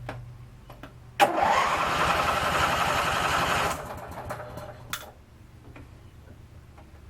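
Electric starter cranking the Craftsman 19.5 twin riding mower's twin-cylinder engine for about two and a half seconds as the key is turned in a newly fitted ignition switch, with a click as it engages and another click a little after it stops. The switch now cranks the engine.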